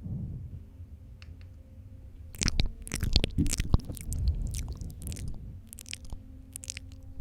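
Close-up wet mouth sounds for spit painting: lip smacks and saliva clicks in quick, irregular runs, starting about two seconds in.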